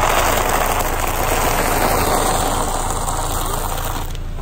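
A car tyre rolling over a pile of ring-shaped oat cereal on asphalt, crushing it into a dense crackling crunch that stops about four seconds in, over the car's low engine hum.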